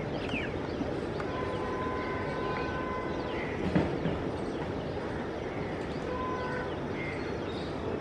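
Birds chirping over steady open-air noise while a WAP-5 electric locomotive approaches in the distance, its two-tone horn heard faintly as long held notes about a second in and again around six seconds. A single sharp knock just under four seconds in.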